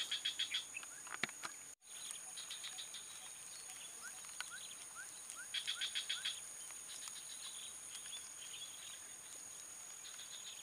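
Outdoor marsh ambience of insects: a steady high-pitched drone, with bursts of rapid pulsed chirping at the start and again about five and a half seconds in. A few short rising chirps sound in between. The sound drops out for an instant about two seconds in.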